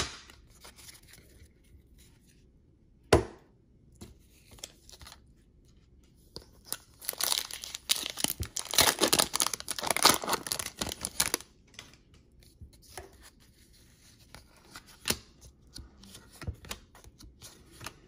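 A basketball card pack's wrapper being torn open and crinkled for about five seconds, starting around six seconds in, with a couple of sharp knocks before it and light handling clicks after.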